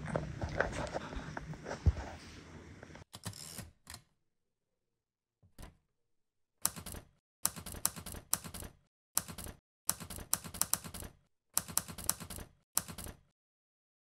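Typewriter sound effect: runs of sharp key clacks in several quick clusters, starting about six seconds in, as a title is typed out. Before that there is room noise with one sharp knock about two seconds in.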